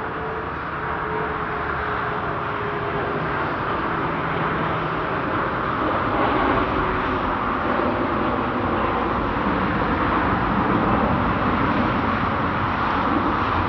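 Jet airliner engines running at high power for a departure, a steady rushing noise that grows louder over the first half and then holds. Faint steady tones underneath fade out in the first few seconds.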